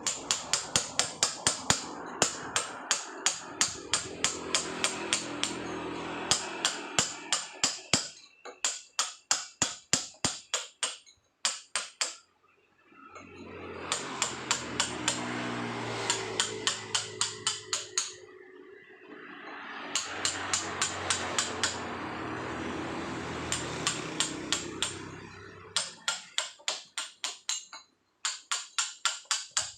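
Hand chisel struck with a hammer, carving soft paras Jogja limestone by hand. The sharp taps come at about four a second, in runs of several seconds with short breaks.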